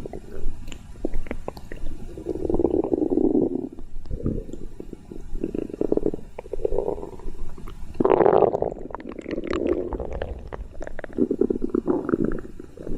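Stomach growling: a string of gurgling rumbles, each about a second long, with small crackling clicks between them.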